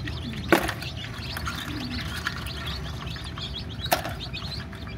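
Many newly hatched Egyptian chicken chicks peeping continuously in a dense, overlapping chorus of short high cheeps. Two sharp clicks come through, about half a second in and near four seconds.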